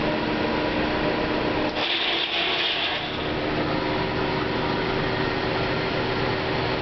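Corn grain dryer running: a steady mechanical drone with a hum. About two seconds in the hum shifts in pitch and a higher hiss briefly joins.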